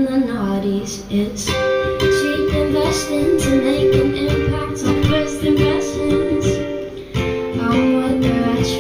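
A woman singing long held notes over her own strummed Strat-style electric ukulele, with a brief dip about seven seconds in.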